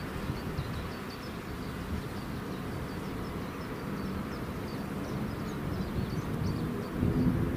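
Diesel freight train running by: a steady low engine drone and rumble that grows a little louder near the end.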